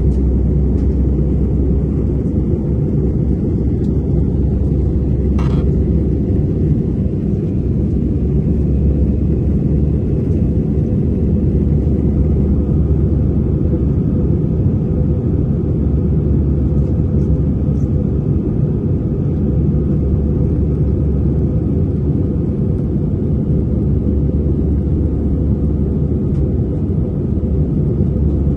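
Steady low rumble of an Airbus A320 in flight, engine and airflow noise as heard inside the passenger cabin. A faint click comes about five seconds in.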